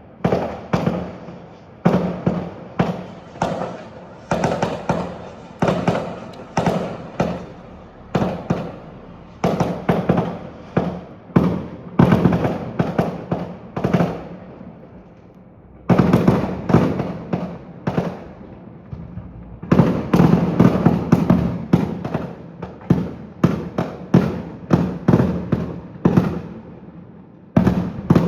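Fireworks display: aerial shells bursting in quick succession, sharp echoing bangs several a second. There is a short lull in the middle, followed by a denser barrage.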